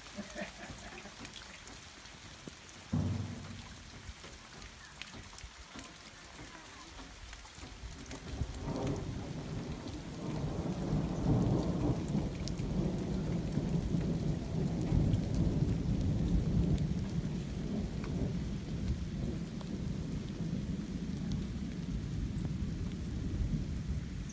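Rain falling steadily, with a sudden short thunderclap about three seconds in, then a long low roll of thunder that builds from about eight seconds in and is loudest a few seconds later.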